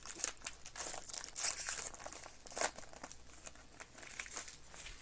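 Plastic wrapping on trading-card packaging crinkling and tearing as it is opened by hand, in a quick run of irregular crackles.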